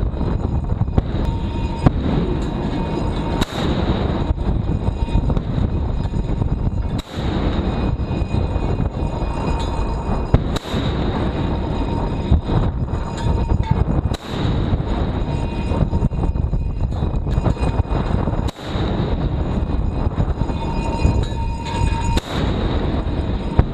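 Steady low rumble of wind and ship noise on the microphone of a camera high on a warship at sea, broken by a brief dropout every three to four seconds.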